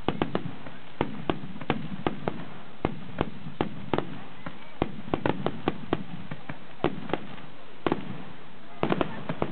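Fireworks going off: a string of sharp cracks and pops at irregular intervals, a few each second, over a steady background hiss. The cracks bunch more thickly near the end.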